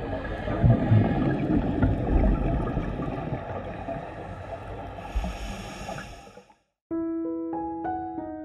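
Underwater rumble and bubbling of scuba divers' exhaled air, with a few low thumps, fading out about six and a half seconds in. A piano melody starts a moment later.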